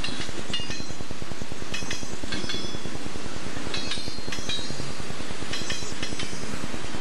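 Freight cars of a Southern Pacific train rolling past. The steel wheels give pairs of sharp, ringing metallic clicks about every two seconds as each car's trucks cross a rail joint, over a steady low rumble.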